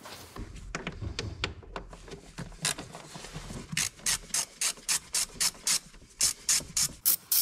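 Hand ratchet fitted with a Torx T25 bit, clicking as it turns a screw. The clicks come in an even run of about three a second and grow louder in the second half.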